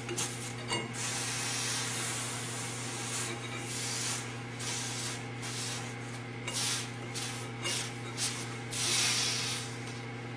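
Wood shaper's 3-horsepower motor running with a steady hum while a cloth is pressed and rubbed against the spinning spindle and the hot copper pipe. This gives repeated hissing, scrubbing bursts, the longest about nine seconds in.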